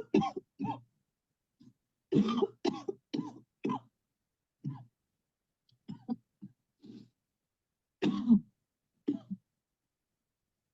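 A person coughing deliberately on cue, in several short bouts of two to four sharp coughs with pauses between them, as part of a guided breathe-in-deep-and-cough exercise.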